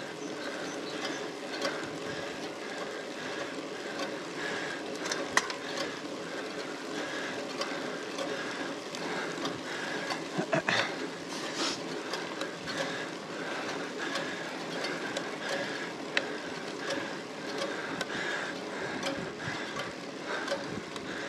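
Road bicycle climbing slowly under hard pedalling: a steady whirr and rattle of the chain and drivetrain, with a few sharp clicks along the way.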